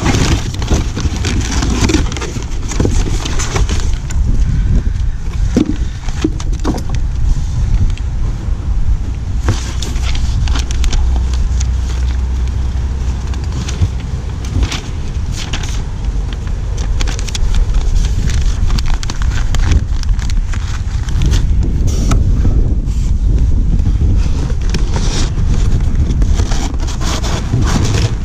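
Wind buffeting the camera microphone in a steady low rumble, with paper instruction sheets and cardboard packaging rustling and crinkling as they are handled.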